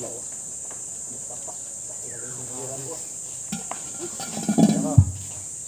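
Men's voices calling out over a steady high insect drone, with a short sharp thud about five seconds in, as a heavy pot is manhandled off a truck.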